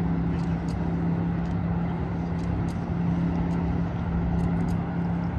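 Steady rumble of city traffic with a constant low-pitched engine drone.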